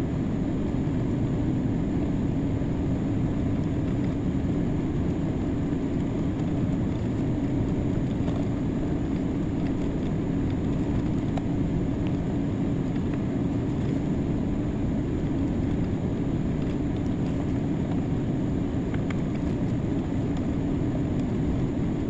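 Open tractor's engine running steadily while it pulls a field drag to smooth a freshly seeded field.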